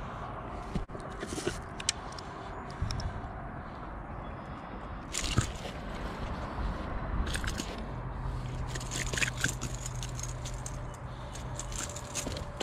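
Dry grass rustling and crunching, with scattered clicks and scrapes, as a small fish is handled on the grassy bank. A low steady hum joins about eight seconds in.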